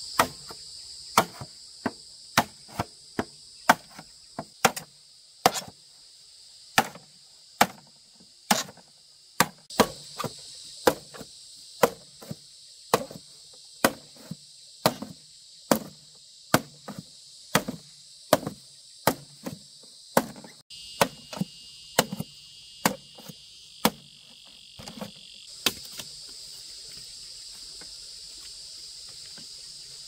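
Repeated chopping strikes, a blade cutting into something a little more than once a second at an uneven pace; they stop about 25 seconds in. Insects chirr steadily in the background throughout.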